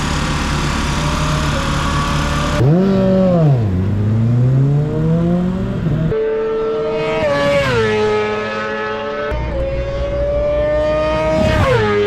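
Supersport racing motorcycle engines running and revving, their pitch rising and falling several times, with a sharp drop near the end; the sound changes abruptly a few times.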